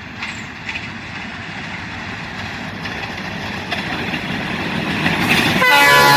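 Diesel-hauled train approaching, its running noise growing steadily louder, then the locomotive's horn starts blowing loudly near the end.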